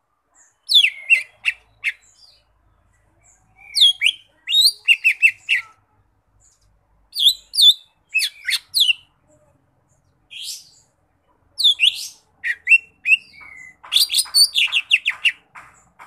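Caged leafbird (cucak ijo mini) singing in bursts. The phrases are made of quick, sharply falling whistles and chips, with short pauses between them, and a rapid chattering run of notes near the end.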